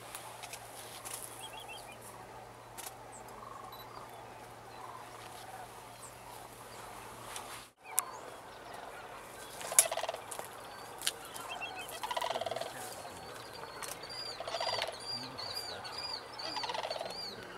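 Sandhill cranes calling: rolling, rattling calls, faint at first and then louder, about four of them coming in the second half.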